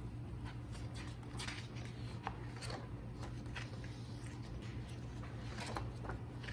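Handling of the DVD set's paper and plastic contents: scattered soft rustles and light clicks, over a steady low hum.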